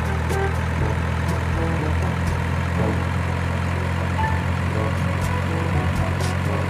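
Heavy truck engine idling steadily, a low even rumble that does not rise or fall. It is a sound effect laid over a toy cement mixer truck, which has no motor.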